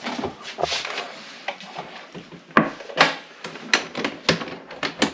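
A string of irregular sharp knocks and clicks, the loudest two about two and a half and three seconds in, among short bursts of rustling.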